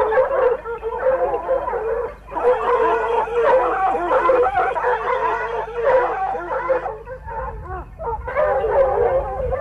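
A pack of hunting hounds baying and howling together, many voices overlapping, in full cry on a wild boar's trail. A brief lull comes about two seconds in, and the cry grows quieter for a moment near the end.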